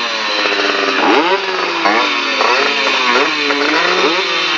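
Yamaha F1ZR two-stroke motorcycle engine, stationary and revved in sharp throttle blips. The pitch jumps up and drops back about five times, with the engine running on between blips.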